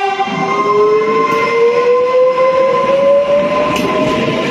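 Trenitalia Pop (ETR 104) electric multiple unit running past at close range: the whine of its electric traction drive rises steadily in pitch as it gathers speed, with a second steady tone above it, over the loud rumble of wheels on rail.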